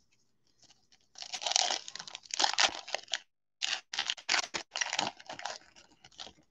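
Foil wrapper of a Topps baseball card pack being torn open and crinkled by hand, in a run of crackly bursts with a short pause in the middle.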